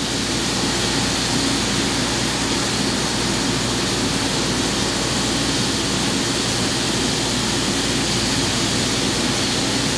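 A CNC vertical mill's flood coolant sprays steadily while the spindle runs a finishing end mill around the inside bore of a 416 stainless steel recoil lug. It is an even hiss with a faint low machine hum under it.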